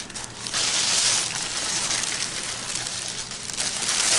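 Packaging crinkling and rustling as a model train car is unwrapped, a steady crackle with a few sharp clicks.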